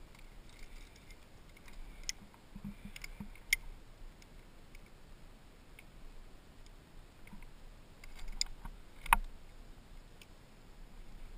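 Climbing gear clinking and clicking: carabiners and cams on a harness rack knocking together as a cam is placed in a granite crack and a sling is clipped to it. The clicks come scattered, with one sharp, loudest click near the end.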